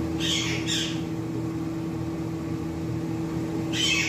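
A steady appliance or fan motor hum with a constant tone. Two pairs of brief high-pitched chirps break in, one pair just after the start and one near the end.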